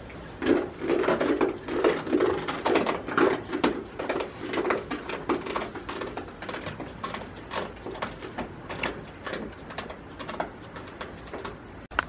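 Rhythmic rustling and scraping close to the microphone, about two or three short strokes a second, loudest in the first few seconds: goats nuzzling and nibbling at a person's jacket and gloves in straw bedding.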